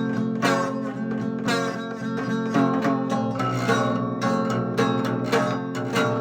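Music led by a plucked, strummed guitar, played in a steady rhythm.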